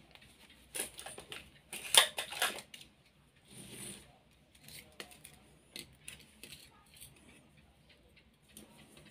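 Clicks and clatter of small metal parts and tools being handled, in a quick cluster of sharp knocks about one to two and a half seconds in, followed by a short rustle and scattered light ticks.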